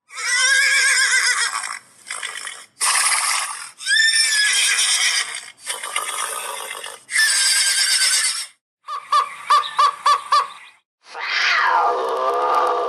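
A string of short wild-animal calls from different clips, cut back to back: quivering, whinny-like cries, then a quick run of even pulsed notes, and near the end one long call that slides steeply down in pitch and then holds.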